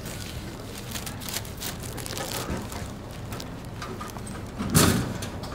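Rustling and clicking from a phone being handled against clothing, over a low rumble, with one louder thump near the end.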